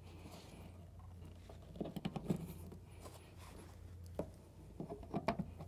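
Power cord plugs being handled and pushed into the sockets of a portable bed bug heater: two clusters of small clicks and knocks, about two seconds in and again near the end, over a steady low hum.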